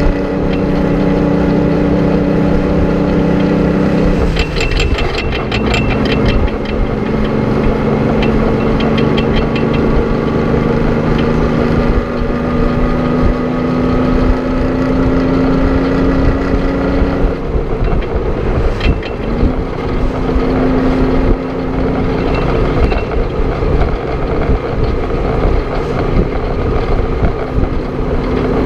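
1950 GMC 970 truck's Detroit Diesel 6-71 two-stroke engine pulling along the highway. Its note drops twice as it shifts up, about four seconds in and around eighteen seconds, and climbs slowly in between, over a steady rumble of road and wind noise.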